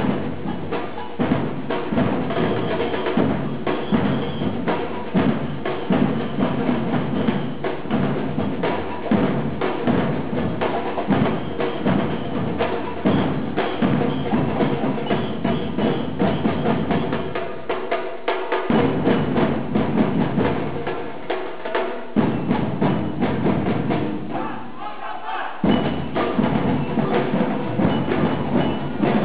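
Percussion music: drums playing a steady, dense rhythm with sharp wood-block-like clicks on top. The low drums drop out briefly twice, a little past halfway and again near the end, then come back in.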